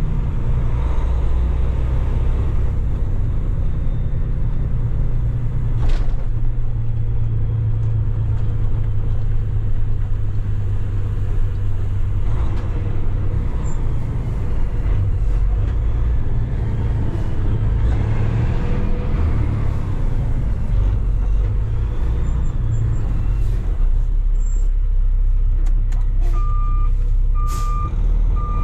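Kenworth T880 dump truck's diesel engine running steadily under a heavy load of fill. Near the end a reversing alarm starts beeping at an even pace, about one beep a second, as the truck begins backing up.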